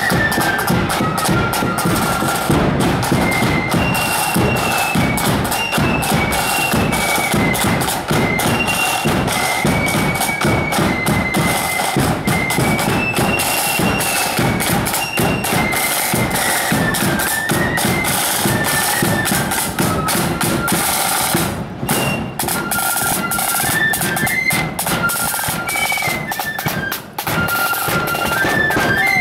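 Marching flute band playing a march: massed flutes carry a high stepping melody over the steady beat of side drums and a bass drum.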